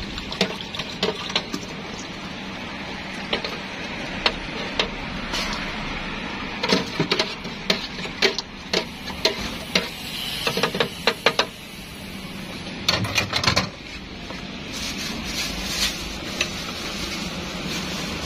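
Wire noodle strainer basket and utensils clinking and knocking against a steel soup pot and foam bowl while noodle soup is dished up, in scattered sharp strikes with a quick run of taps near the middle, over a steady background hiss.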